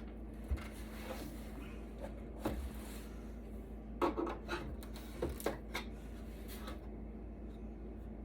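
Scattered light clicks and knocks of hands and tools handling an electronics chassis being taken apart, busiest about four to six seconds in, over a steady low hum.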